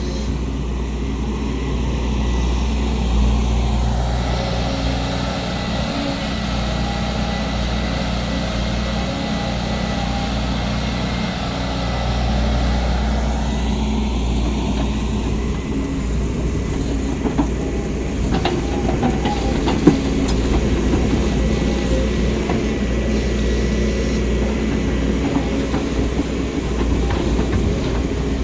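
Volvo 210 crawler excavator's diesel engine running steadily under working load. It swells louder for several seconds early on, then metal clanks and knocks come in the second half, one sharp clank about twenty seconds in.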